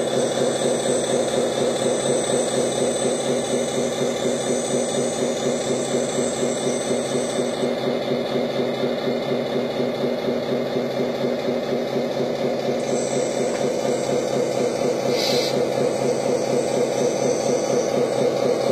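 Simulated diesel engine idling steadily from a LESU 6x6 RC dump truck's sound unit, with a faint high whine from the tipping mechanism during the first several seconds and again past the middle while the tipper bed is worked.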